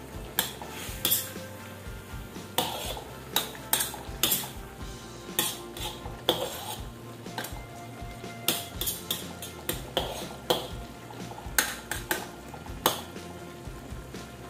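A ladle clinking and scraping against a metal wok while vegetables and fish in broth are stirred, with irregular sharp knocks about once a second.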